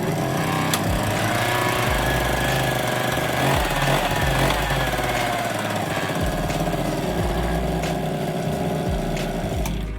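Suzuki Birdie 50's small two-stroke engine running steadily at idle, with a brief rise in pitch about four seconds in.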